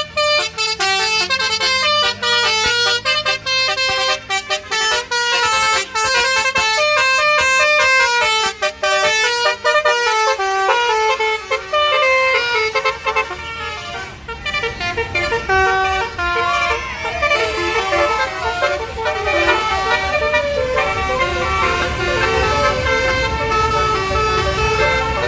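Basuri multi-tone telolet air horn playing a tune: quick stepping notes, loud and nearly continuous, with a few short breaks in the first half. A vehicle engine rumbles beneath the horn in the second half.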